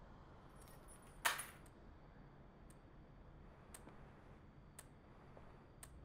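A brief sharp metallic jingle about a second in, like keys or coins clinking, set against faint regular ticks about once a second.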